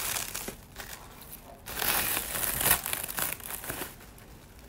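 Close-up eating sounds: chewing, and a spoon scraping and scooping rice on a plate, heard as irregular crackly rustling bursts that are loudest around the middle.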